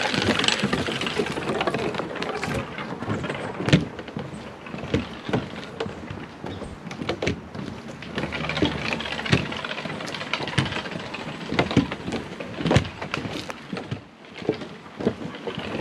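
Footsteps on a wooden boardwalk: irregular hollow thuds of shoes on the planks, roughly one a second, over a steady outdoor hiss.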